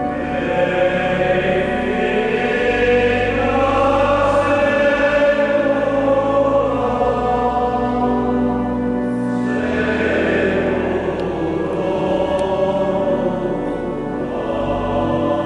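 Choir singing slow sacred music in long held notes, with a steady low accompaniment; a new phrase begins about two-thirds of the way through.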